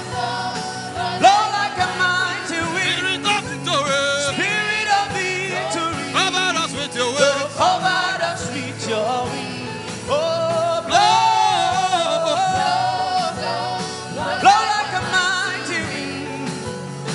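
Worship music: a voice singing long, sliding held notes over steady sustained chords.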